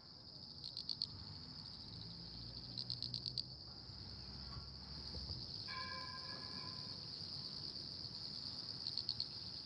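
Crickets trilling steadily in the pre-dawn dark, with short bursts of quicker pulsed chirping near the start, about three seconds in and near the end, over a faint low rumble.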